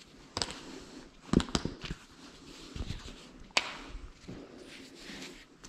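Footsteps and irregular knocks and scuffs on a hard floor, with a quick cluster about a second and a half in and a single sharp knock a little after three and a half seconds.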